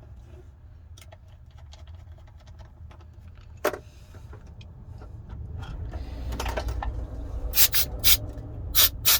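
Faint ticking of a small screwdriver driving a phone's last mid-frame screw, then several short, loud blasts from an air duster in the last two seconds.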